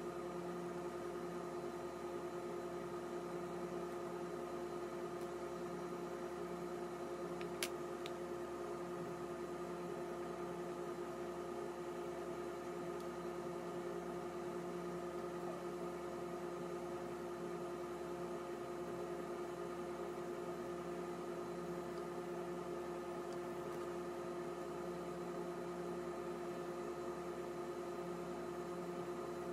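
Steady room hum made of several fixed tones, with a slow pulse in its lower tone and one sharp click about eight seconds in.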